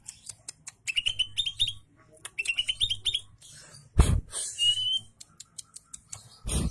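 Cucak ijo (green leafbird) singing. Two quick runs of short rising chirps come about a second in and again about two and a half seconds in, then a single rising whistle near the five-second mark, all mixed with sharp clicking notes. Two loud thumps come, one about four seconds in and one near the end.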